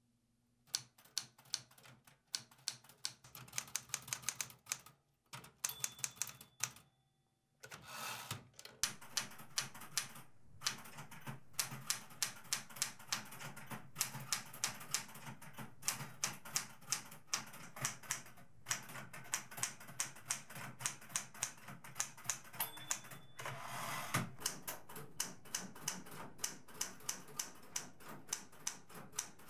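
A manual typewriter's keys clacking in fast runs of keystrokes, broken by short pauses, with a brief ring twice.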